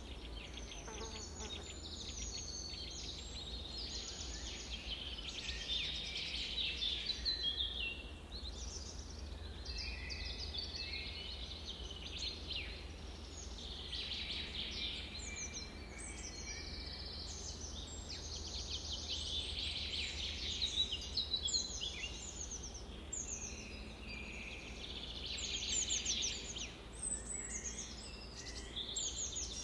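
Many small songbirds chirping and trilling at once, a dense overlapping chorus of quick high calls, over a faint low hum.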